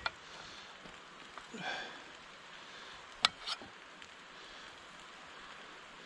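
Knife cutting a block of Spam on a board: a soft scrape, then two sharp clicks about halfway through, over a faint steady hiss.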